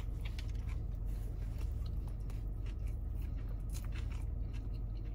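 A person biting into and chewing a bacon burger topped with crunchy tortilla strips: faint irregular crunching and chewing clicks over a steady low hum.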